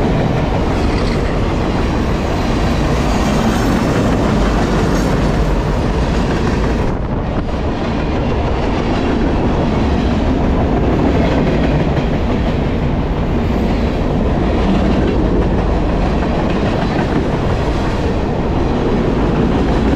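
Freight train cars (boxcars, covered hoppers and tank cars) rolling past close by on the rails: a loud, steady sound of wheels on track, with a short dip in loudness about seven seconds in.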